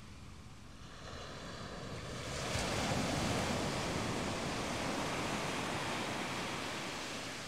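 Ocean wave breaking on a beach: the rush of surf builds, peaks about two and a half seconds in, then slowly fades as the wash runs out.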